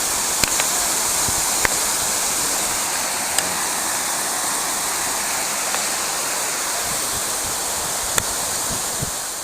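Waterfall rushing steadily into its pool, with a few light clicks over the top.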